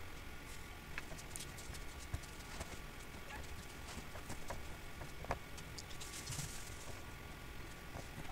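Faint, irregular clicks of a computer mouse, spaced about a second or so apart, over a low steady background hum.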